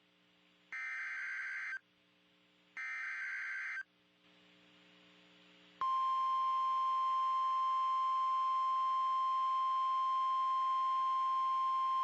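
NOAA Weather Radio Emergency Alert System alert: two one-second bursts of the warbling SAME digital header, then, about six seconds in, the steady single-pitch weather radio alarm tone starts and holds. The alarm tone is the louder sound and announces a severe thunderstorm warning broadcast.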